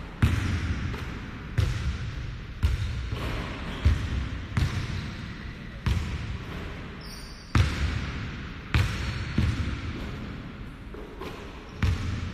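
A basketball bouncing on a hardwood gym floor: about ten irregular thuds, roughly one a second, each echoing.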